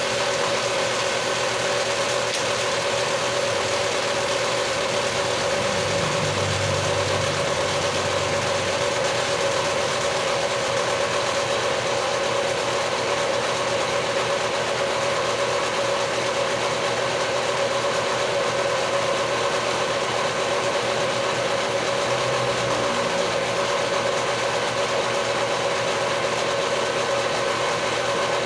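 A power tool's motor running steadily with a constant hum, without strokes or changes in load.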